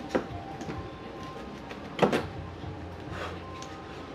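Plastic bumper retaining clips being pried out with a flathead screwdriver: a few small clicks and one sharp snap about two seconds in.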